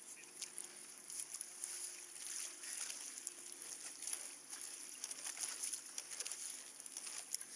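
Choppy water lapping and splashing against a kayak hull in uneven little slaps, over a faint steady low hum.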